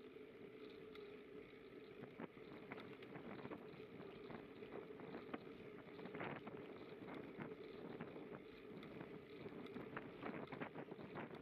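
Faint, steady rumble of a bicycle rolling along an unpaved grit path, with wind on the microphone and many small scattered ticks and rattles.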